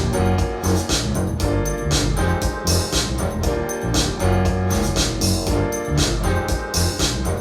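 Music with a steady beat and a strong bass line, played back through SABA 1300 Professional vintage hi-fi loudspeakers.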